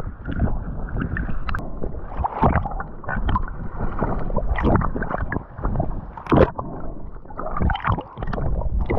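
Sea water sloshing and splashing close to the microphone, in uneven splashes with a louder one about six and a half seconds in.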